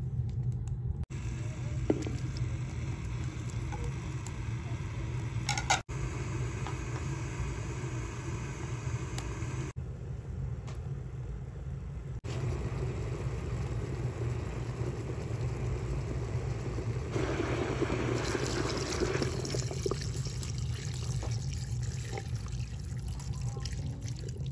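Water poured from a jug into an aluminium pressure-cooker pot of raw beef, onions and chopped tomato, a splashing pour in the second half, over a steady low hum.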